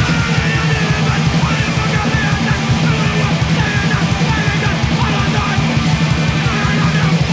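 A powerviolence/hardcore punk track kicks in abruptly: very fast, relentless drumming under heavily distorted guitar, with shouted vocals over the top.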